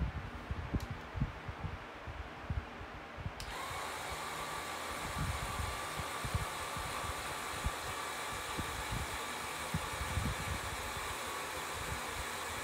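Small electric motor and gearbox of a Mould King Sandcrawler brick model whirring steadily with a constant whine as it lowers the front ramp, starting about three seconds in. A few low thumps come before it.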